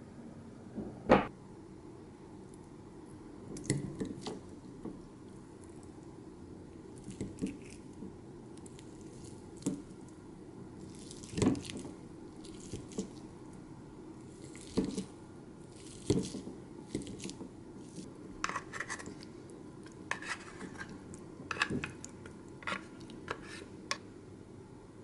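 Metal wire potato masher mashing boiled eggs in a glass bowl: irregular clinks and taps of metal on glass with soft squishing, and one sharper knock about a second in.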